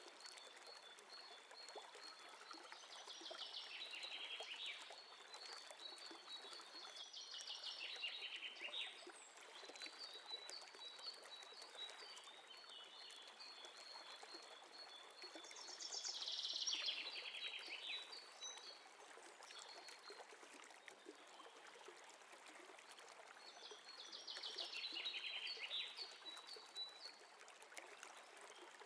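Faint background of a steady hiss with high chirping calls: a thin trill running through much of it, and louder chirping bursts four times.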